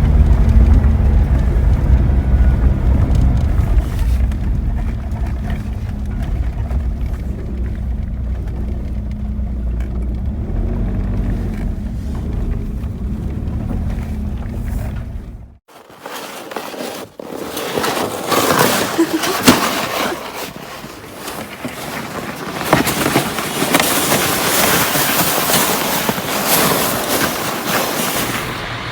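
Car engine and tyre noise heard from inside a moving car, a steady low drone. About halfway through it cuts off abruptly and a brighter, crackly rustling noise takes over.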